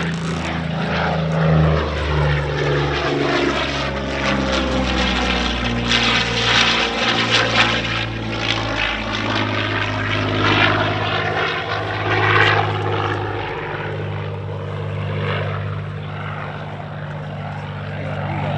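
Curtiss P-40N Warhawk's Allison V12 engine running hard during an aerobatic display. The engine note steps and shifts in pitch, with a sweeping, phasing rush as the fighter passes close by in the middle of the stretch.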